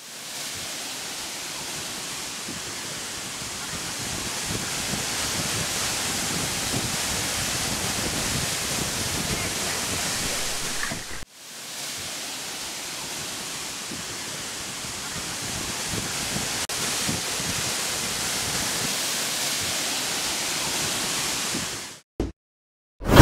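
Waterfall pouring over rock into a pool: a steady rush of falling water, broken briefly about eleven seconds in and stopping just before the end.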